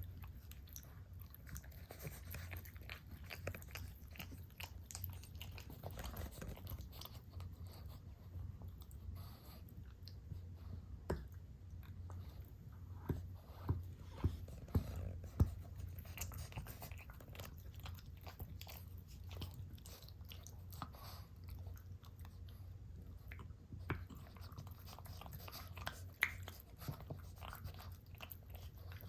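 A dog chewing: faint, irregular clicks and crunches, a few louder ones in the middle, over a low steady hum.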